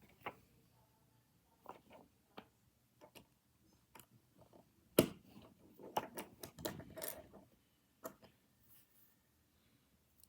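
Tiny plastic Nanoblock pieces clicking as they are handled and pressed together: scattered light taps, with a sharp click about five seconds in and a busier run of clicks and rustling just after it.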